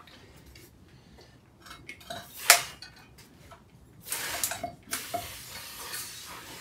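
Clinks and knocks of metal tools and floor-pump parts being handled, with one sharp clack about two and a half seconds in and a busier rattle about four seconds in.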